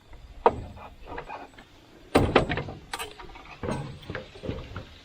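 Irregular knocks and clunks, about five sharp impacts over a few seconds, the loudest about two seconds in, typical of heavy metal parts being handled and set in place.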